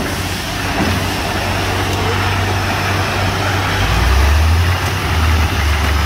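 Truck-mounted DTH borewell drilling rig running steadily: the engine's deep hum under a broad hiss of compressed air, swelling somewhat about four seconds in.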